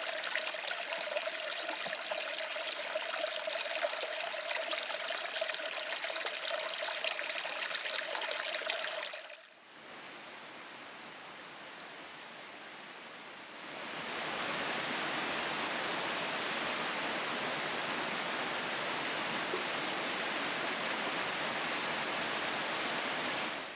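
Mountain stream running steadily, heard in three separate shots: a steady rush, a quieter stretch from about ten seconds in, then a louder, fuller rush from about fourteen seconds in.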